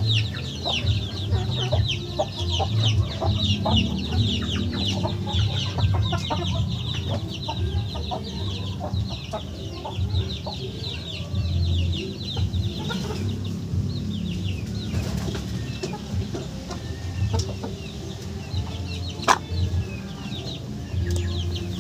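Chickens clucking, with many short high falling calls packed close together through the first half and a sharp knock near the end.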